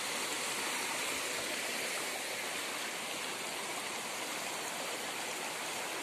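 Shallow rocky stream running over and between boulders: a steady rush of water.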